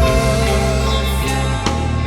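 Band music with electric guitar, bass and drum kit playing: a rock instrumental passage with sustained guitar notes.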